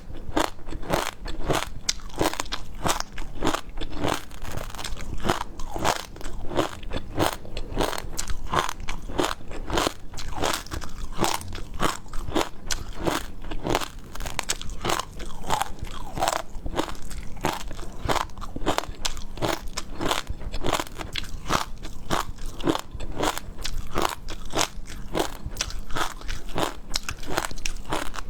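Close-miked eating of seafood: crunchy bites and chewing, a few sharp crunches a second, keeping up without a break.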